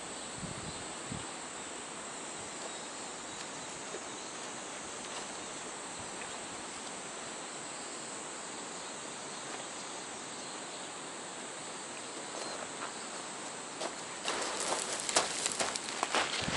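Steady rush of river water flowing over a riffle, with a faint high insect drone over it. From about three-quarters of the way through, a close run of rustling and clicking handling noises.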